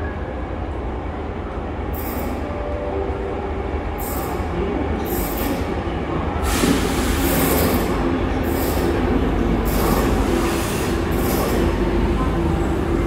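Athens Metro Line 1 electric train pulling into the station: a low rumble that grows louder as it comes in, broken by repeated short bursts of high-pitched wheel squeal, with a steady whine underneath as it slows alongside the platform.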